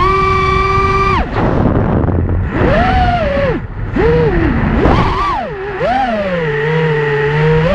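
An FPV racing quad's brushless motors (Rebel 2206 2600KV) whining, the pitch sweeping up and down as the throttle is punched and chopped. The whine holds high for about the first second, dips and swoops through the middle, then settles lower near the end, over a rush of air noise.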